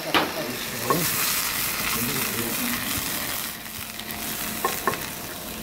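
Blanched broccoli florets and garlic sizzling in oil in a frying pan, a steady hiss that weakens about three and a half seconds in.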